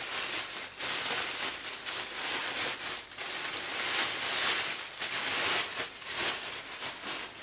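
Thin plastic carrier bag crinkling and rustling unevenly as it is pulled and unwrapped from around a model horse.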